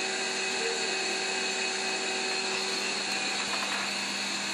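A steady machine hum with several constant tones over a hiss, like a running motor. One of the tones drops out about three seconds in.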